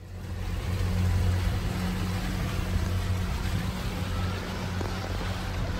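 Motorboat under way: a steady low engine drone with a rushing noise over it, cutting in out of silence and swelling to full level within about a second.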